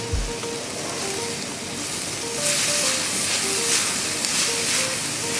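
Shredded cabbage and carrots sizzling in hot oil as they are stirred in the pan, the sizzle getting louder and brighter a little over two seconds in. A simple background music melody plays throughout.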